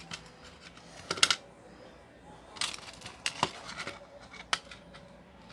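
Homemade slime being pulled apart and worked by hand: a handful of short clicks and crackles, the loudest a little over a second in.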